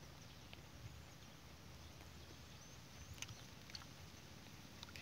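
Near silence: a faint outdoor background with a few soft clicks, the clearest about three seconds in.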